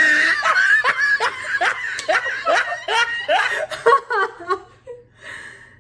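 A woman laughing hard: a string of short falling "ha"s, about two or three a second, that tails off near the end.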